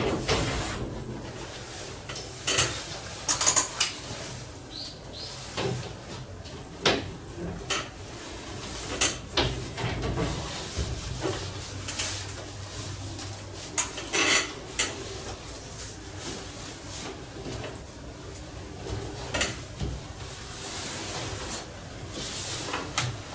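Irregular handling noises: sharp clicks, light taps and short rasps as a roll of white tape is unrolled and worked along an aluminium frame.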